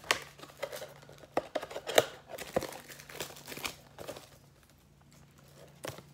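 Empty trading-card pack wrappers being crumpled and gathered up: a run of irregular crinkling and sharp crackles that dies down about four seconds in, with one more click near the end.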